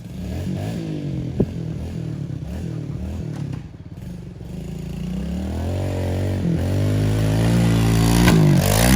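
Pit bike engine starting up right at the start, running with throttle blips that rise and fall in pitch, then revving higher and louder from about halfway through.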